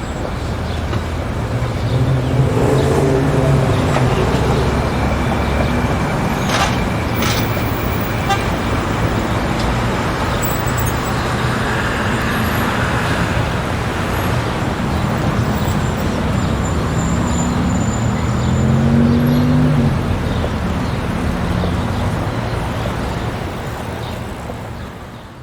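City street traffic: a steady din of engines and tyres, with a vehicle's engine rising in pitch twice as it pulls past. There are two sharp knocks about seven seconds in, and the sound fades out at the end.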